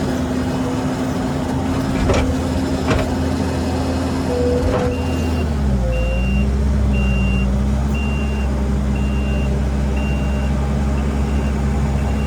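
Heavy equipment engines running hard while trying to pull a skid steer stuck in quicksand, with a few sharp clanks in the first five seconds. About five seconds in a reversing alarm starts beeping about once a second, and the engine pitch dips and settles lower as the machine backs up.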